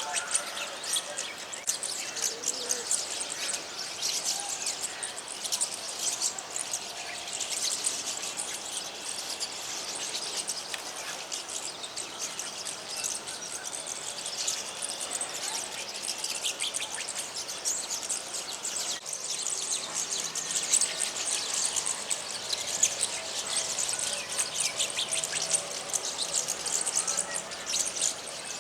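A flock of small birds chirping and twittering together, a dense, unbroken chorus of many quick high calls overlapping.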